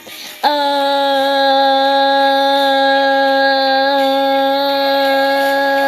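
Music: a single long note held at one steady pitch, coming in about half a second in after a brief gap and sustained without change.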